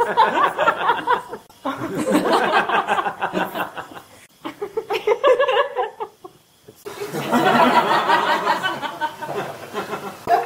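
Human laughter in several bursts of giggling and chuckling that start and stop abruptly, with a brief pause about six seconds in.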